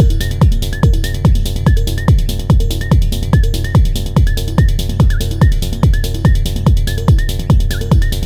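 Hypnotic techno pattern played on an Elektron Model:Cycles groovebox: a kick drum hitting about twice a second with falling pitch sweeps, under steady ticking hi-hats and a repeating short high blip.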